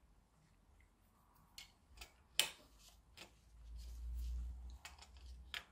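AA batteries being pushed into a plastic battery holder, a few quiet, sharp clicks and rattles as they seat against the spring contacts. There is a soft low rumble of handling in the middle.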